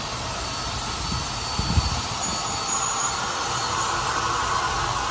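Izuki SDG8500SE silent-type diesel generator running with a steady low drone, with a brief buffet of wind on the microphone about two seconds in.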